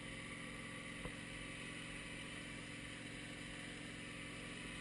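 Wood-Mizer LT15 bandsaw mill's gas engine running steadily, with the blade disengaged, as the saw head travels back along the rail in reverse; a small click about a second in.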